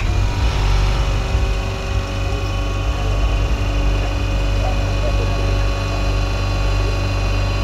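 Semi-hermetic refrigeration compressor of a gelato machine starting up abruptly, then running with a steady deep hum and a set of steady higher tones over it.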